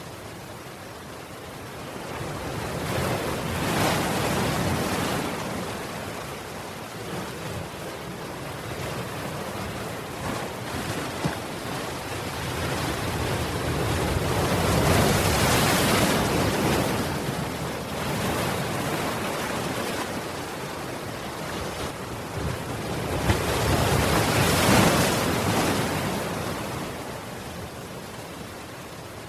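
Ocean surf breaking against a seawall: a steady rush of water that swells into three big crashing surges about ten seconds apart, with a couple of sharper splashes in between.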